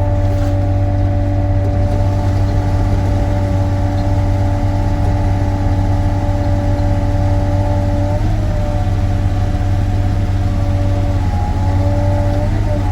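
Sany SY35U mini excavator running steadily, a low diesel drone with a whine from the hydraulics above it; the whine shifts pitch briefly about two-thirds of the way through and again near the end as the machine is worked.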